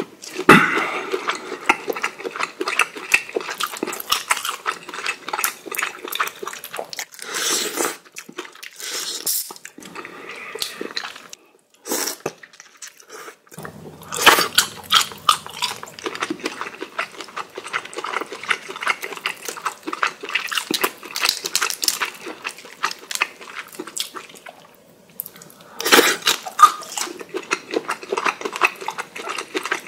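Close-miked cooked shrimp being peeled by hand, with thin shells crackling and tearing in dense clicks, and wet chewing and lip-smacking of the shrimp meat.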